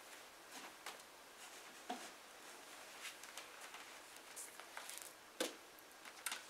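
Quiet room with faint rustling and a few soft clicks and knocks as a person sits down on a wooden folding stool and handles a book.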